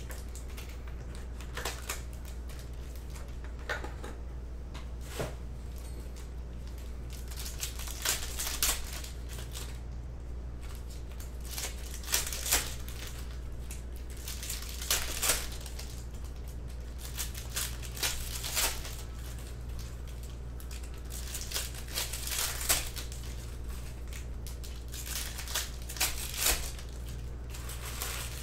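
Foil trading-card packs crinkling and tearing open in the hands, with bursts of rustling every few seconds as the cards are pulled out and handled. A steady low hum runs underneath.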